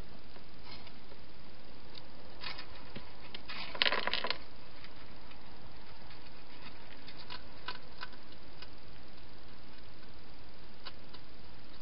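A wild hedgehog feeding at a bowl inside a plastic feeding box: scattered small clicks and crunches of it eating, with a louder burst of clicks and rattles about four seconds in, over a steady hiss.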